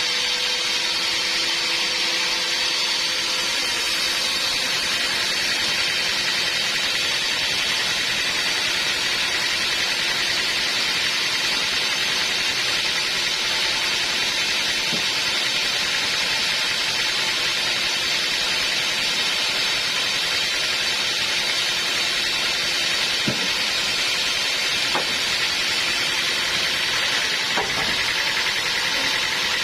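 Sawmill machinery running steadily, a continuous hissing mechanical noise, with a few light knocks near the end.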